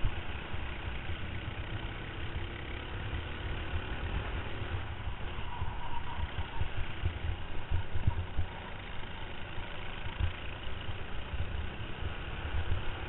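Racing kart engine running at speed, heard onboard the kart, with heavy rumbling and irregular knocks from chassis vibration and wind on the microphone.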